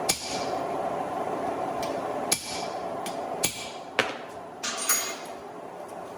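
Hand hammer striking hot steel at the anvil: about five sharp, ringing blows at uneven spacing, over a steady rushing background.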